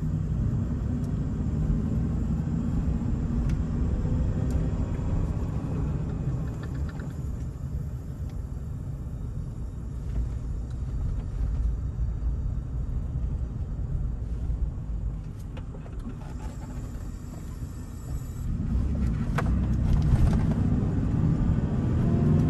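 2003 Toyota Tacoma five-speed manual pickup driving off in first gear, heard from inside the cab: engine hum and road rumble. It eases off through the middle and builds again near the end.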